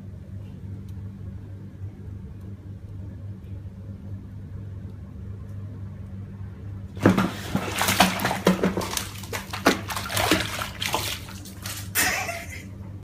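Faint steady low hum, then about seven seconds in a sudden loud splash as a cat falls into a foamy bath, followed by about five seconds of irregular splashing and sloshing while it scrambles out of the water.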